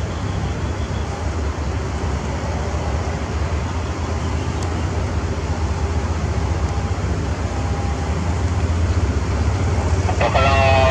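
Diesel-electric locomotive No. 4524's engine running with a steady low hum as it creeps slowly along the station tracks, growing louder as it draws nearer.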